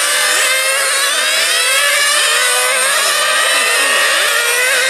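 Several 1/8-scale nitro RC buggies' small two-stroke glow engines racing together, a chorus of high-pitched whines, each rising and falling in pitch as the cars accelerate and lift off around the track.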